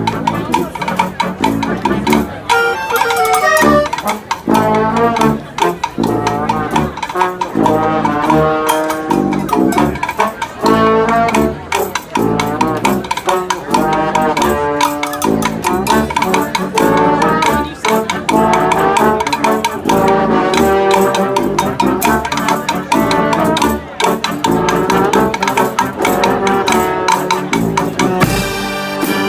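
Live brass band playing, with trumpets and trombones carrying the tune over a steady drum beat.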